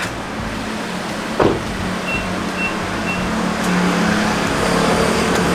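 A motor vehicle running with a steady low hum. A short knock comes about one and a half seconds in, and three short high beeps sound about half a second apart near the middle.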